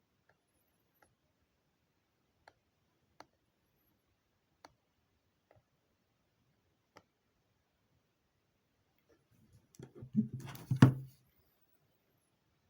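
A few faint, scattered clicks, then a short bout of knocking and rustling handling noise about ten seconds in, ending in one louder thump.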